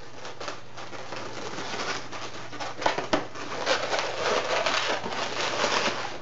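Long black latex modelling balloon rubbing and squeaking as it is wrapped around and twisted in, with two sharp snaps about three seconds in.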